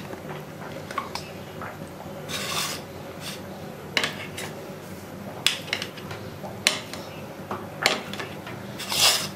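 Kitchen knife cutting a boiled potato on a ceramic plate, the blade clicking against the plate at irregular moments, with two short scrapes, one about two and a half seconds in and one near the end.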